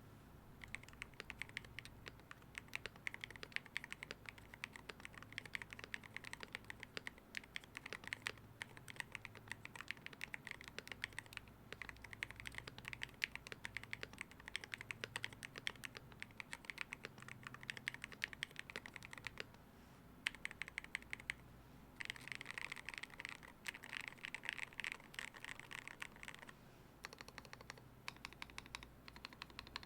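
Typing on a Wooting60 HE V2 keyboard in a KBDfans Holy60 case, with lubed Gateron Jade Max magnetic linear switches and XDA-profile keycaps: a quick, continuous run of keystrokes. After a short pause about two-thirds of the way through, there is a denser, louder flurry.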